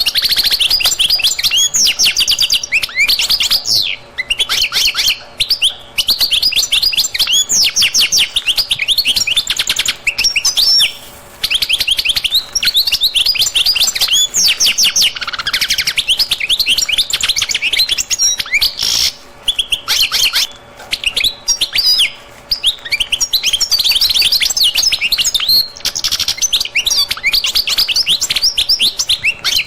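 A dense chorus of small birds chirping and twittering almost without pause, many quick high notes overlapping.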